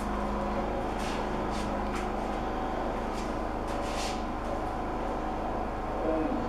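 Steady background machine hum with several faint tones. It carries a few soft, hissy scuffs in the first few seconds and a brief low sliding sound near the end.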